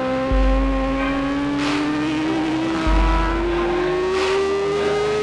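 BMW S1000RR inline-four superbike engine at full throttle, its pitch climbing steadily as it pulls hard through one long gear.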